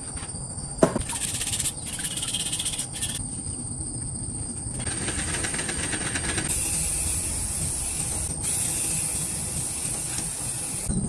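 A string of short, cut-together work sounds, with one sharp knock about a second in, then a steady hiss from an aerosol spray-paint can over the last few seconds.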